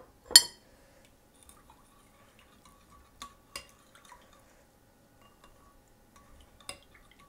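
Metal spoon stirring fenugreek powder into a liquid herbal drink in a ceramic bowl, clinking against the dish a few times. The loudest clink comes about half a second in, with faint scraping of the spoon between clinks.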